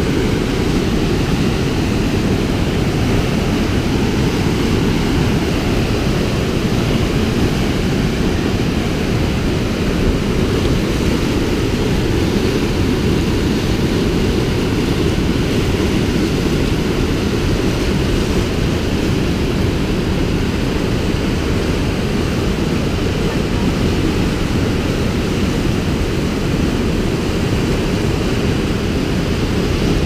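Whitewater river rapids rushing close by: a loud, deep, steady rush of churning water that does not let up.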